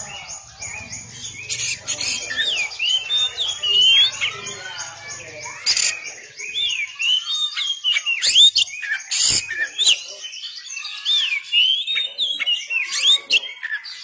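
Oriental magpie-robin (kacer) singing a continuous run of quick, varied whistled phrases that swoop up and down, with a few sharp, piercing notes. A low hum and a fast, even high ticking sit underneath for about the first half, then stop.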